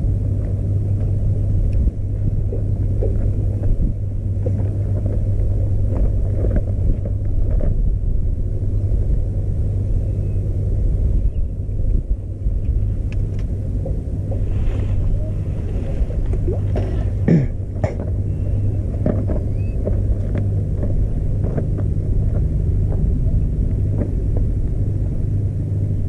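A motor running steadily with a low, even drone, with a few small clicks and knocks over it.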